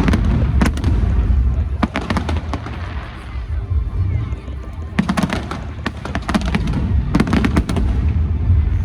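Aerial fireworks bursting: clusters of sharp, crackling reports over a continuous deep rumble of booms, with the densest volleys about five and seven seconds in.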